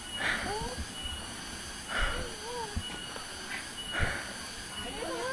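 Heavy breathing of a worn-out hiker at rest: a hissing breath about every two seconds, three in all. Faint wavering high calls in the background.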